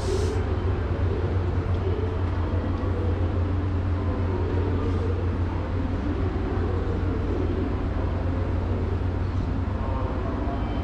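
Steady low hum of a JR Kyushu 885-series electric train standing at the station platform, its onboard equipment running. A short hiss right at the start.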